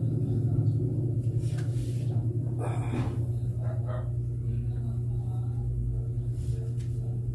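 A man breathing out heavily twice while resting from dumbbell exercise, over a steady low hum.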